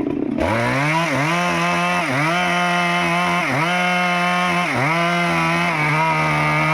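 Stihl 382 two-stroke chainsaw running at high revs, its pitch dipping briefly and recovering four times, then starting to fall right at the end.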